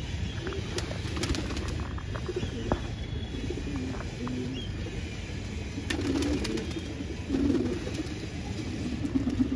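Domestic pigeons cooing in repeated low, warbling phrases, loudest about six and seven and a half seconds in, with a few sharp clicks and taps over a steady low city rumble.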